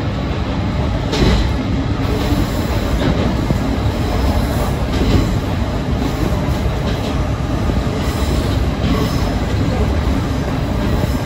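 Kominato Railway diesel railcar running along the line: a steady low rumble, with the wheels clicking over rail joints every second or two.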